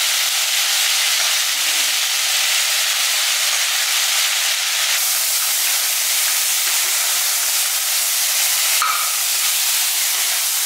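Green peas, tomato and freshly added soya chunks sizzling in hot oil in an aluminium pressure cooker, a steady loud hiss, while being stirred with a metal slotted ladle; a brief click near the end.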